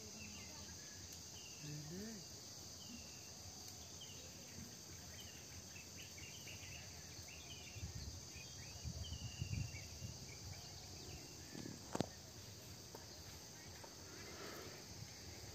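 Outdoor insect chorus: crickets trilling steadily and high, with short chirps over it. Low rumbles come around the middle, and a single sharp click about three quarters of the way through is the loudest sound.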